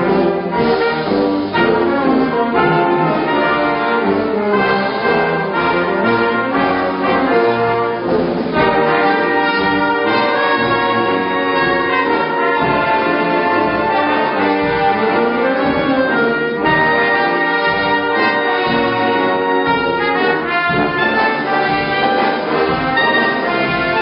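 Orchestral soundtrack music with prominent brass, playing continuously.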